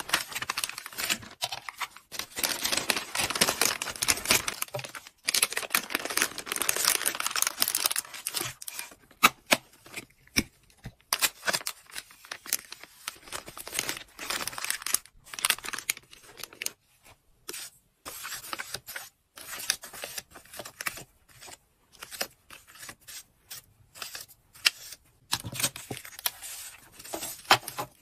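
Clear plastic packaging bag crinkling and rustling as small packaged items are slid into it and handled. A dense, continuous rustle for the first several seconds gives way to scattered short crinkles and light taps.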